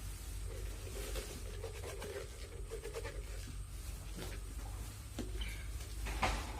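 Small kitchen-set pieces being handled and unpacked: light scattered clicks and rustling, with a sharper knock about six seconds in.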